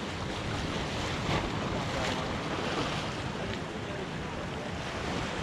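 Small waves washing and splashing against jetty boulders in a steady wash, with wind buffeting the microphone.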